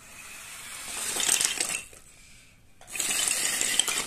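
Toy RC monster truck's electric motor and gears whirring with a rattle in two throttle bursts as it drives across a carpet. The first burst builds for about a second and a half, then cuts off, and the second starts about three seconds in.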